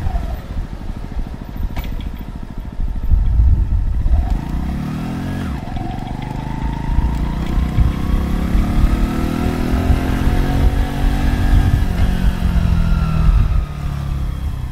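2023 Mutt Razorback 125cc motorcycle's air-cooled engine running under way. The revs drop briefly at the start, climb steadily from about four seconds in, and ease off near the end.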